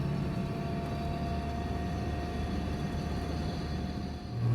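Steady road and engine noise inside a moving car's cabin, with a faint steady whine; a deeper drone comes back in near the end.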